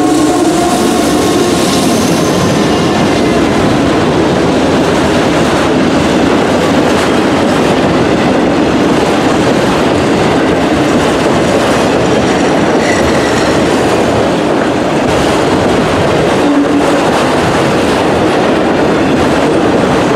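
Norfolk Southern freight train passing at speed. The lead diesel locomotives' horn cuts off about a second in, then a long string of autorack cars rolls past with a steady rumble and clatter of wheels on the rails.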